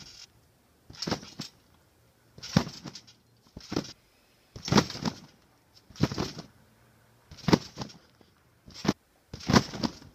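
Repeated bounces on a trampoline: about eight landings on the mat, roughly one every 1.2 to 1.4 seconds, as a jumper builds height for flips.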